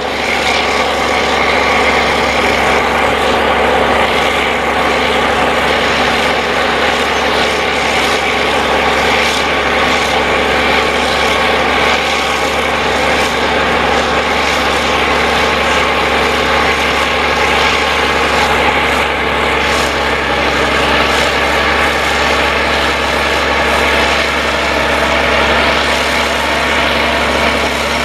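Caterpillar crawler bulldozer's diesel engine running steadily under load while it pushes a pile of sandy soil with its blade.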